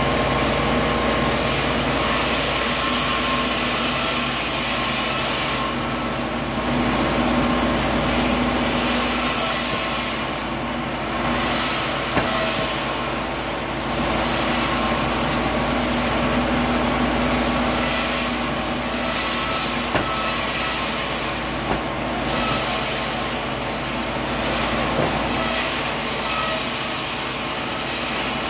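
Sawmill machinery running continuously, a dense mechanical din with steady hum tones and a hiss that swells and fades, broken by a few sharp knocks.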